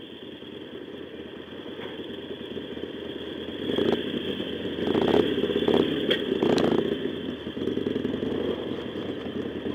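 Two motorcycles, one a Harley-Davidson Sportster V-twin, running at low speed and growing louder as they roll slowly onto a ferry. There are a few sharp knocks about four to seven seconds in as the wheels cross the steel loading ramp onto the deck.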